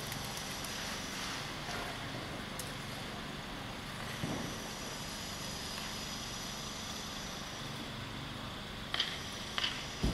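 Steady background noise of a city square, with a few sharp clicks near the end.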